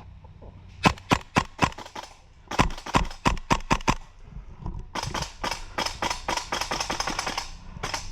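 Airsoft guns firing: two quick strings of sharp shots, the first about a second in and the second at about two and a half seconds. From about five seconds a faster, continuous rattle of shots follows.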